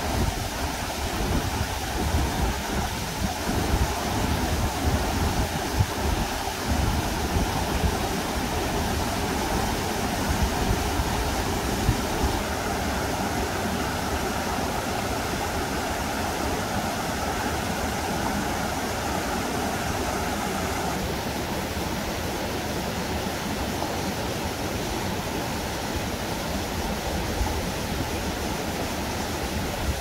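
Mountain stream rushing over rocks and shallow rapids: a steady, unbroken sound of flowing water.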